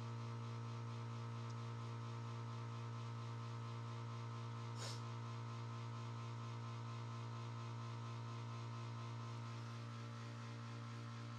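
Electric air compressor of a leak-test pressurising rig running with a steady hum, pushing pressure into a water pipe as the line pressure climbs.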